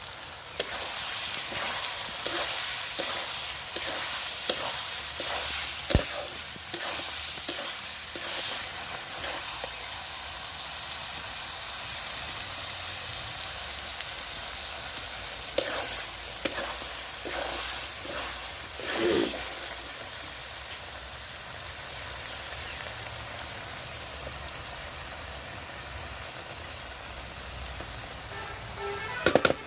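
Food frying and sizzling in a pan, with a spoon stirring and scraping against it. The stirring is busiest in the first several seconds and again in the middle, with a sharp knock about six seconds in. The sizzle runs on more steadily afterwards, and there is a clatter near the end.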